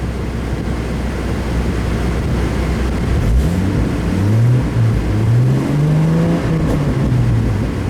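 2002 Chevrolet Trailblazer's 4.2-litre inline-six running at idle after a cylinder 3 misfire has been fixed. About three seconds in, the engine speed rises and falls and then settles, as it comes back from a slight surge.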